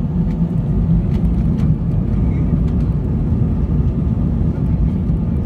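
Airbus A320 cabin noise: a steady low engine rumble as the airliner rolls slowly on the ground.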